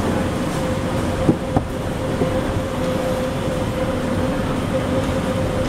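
Steady mechanical hum with a constant whining tone, typical of running workshop machinery, with a couple of light clicks about a second and a half in.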